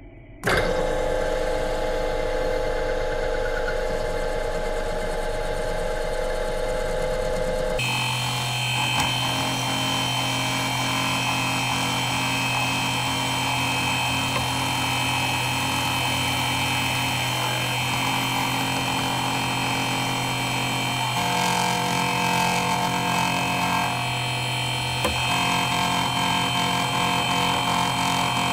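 Milling machine switched on and running steadily, spindle motor turning for a cut on a workpiece held in a rotary table. Its tone shifts sharply about eight seconds in and again past twenty seconds, with a single click near the end.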